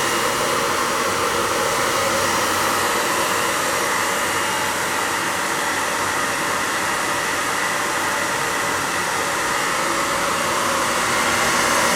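Handheld hot-air blower running steadily, a constant airy rush, warming the 3D-printer resin so that the print comes out without bubbles.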